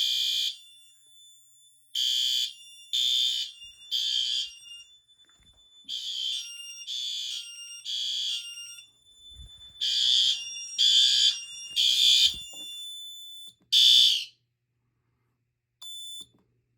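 Fire alarm sounders going off in the temporal-three evacuation pattern after a pull station has been activated: three half-second high-pitched blasts, a pause, then the group again. A fainter steady high tone carries on between the blasts. The alarm cuts off after a single blast about fourteen seconds in, when it is silenced.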